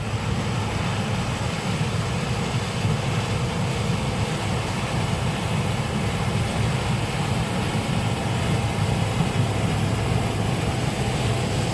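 Case IH combine harvester running steadily in the field: a constant low engine sound with a faint steady machinery whine above it.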